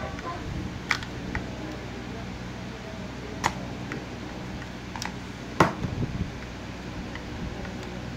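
A handful of short, sharp clicks from steel tweezers and a soldering iron tip against a circuit board as a bridge rectifier is desoldered and pulled out, the loudest a little past halfway. A steady low hum lies underneath.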